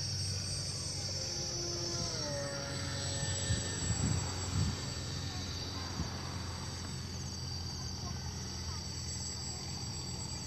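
Radio-controlled model seaplane's motor droning as it flies overhead, its pitch falling in the first few seconds. Insects trill steadily, and there are a few low thumps about four seconds in.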